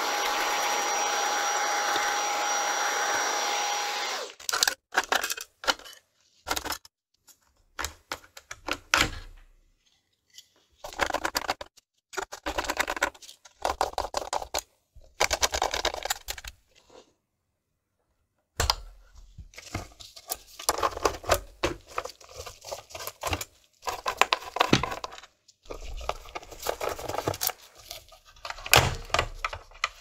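Vacuum cleaner running steadily with a whistling tone, cutting off about four seconds in. Then scattered clicks, rattles and knocks of a screwdriver turning screws and plastic and metal console parts being handled, broken by short silent gaps.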